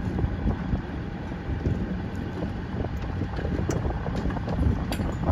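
Wind buffeting the microphone in uneven gusts, over a low steady hum.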